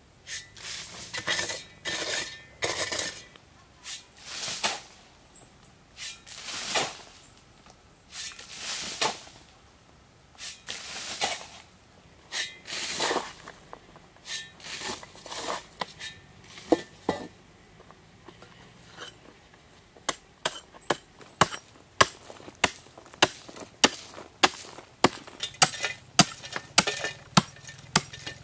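A steel shovel digs into dry, stony soil, each stroke scraping and tossing dirt, in irregular strokes a second or two apart. From about two-thirds in, it changes to sharp, regular slaps, about two a second, as the shovel blade beats the loose soil flat.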